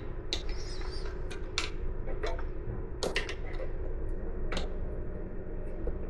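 Scattered sharp metallic clicks and taps, about eight in six seconds and unevenly spaced, from small metal parts and hand tools being handled while a bicycle brake's cotter pin is worked loose, over a steady low hum.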